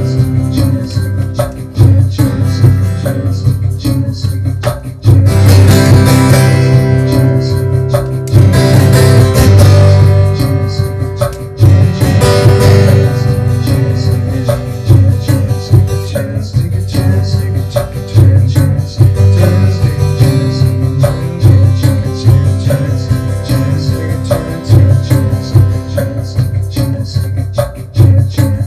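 Acoustic guitar played live, strummed steadily; the strumming grows heavier and brighter from about five seconds in until about thirteen seconds in.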